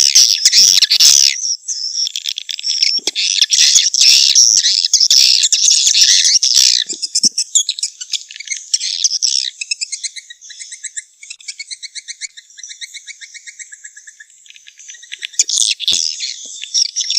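Swiftlet calls of the kind played to attract swiftlets to a nesting house: dense, high twittering for the first half, then fast, evenly pulsed chittering trills, with a louder burst of twittering near the end.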